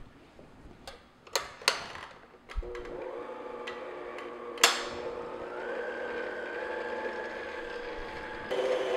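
A few light knocks and clinks, then a stand mixer starts about two and a half seconds in and runs steadily on low speed, its flat beater working flour into cake batter in a steel bowl. A sharp click comes near the middle, and the mixer gets louder near the end.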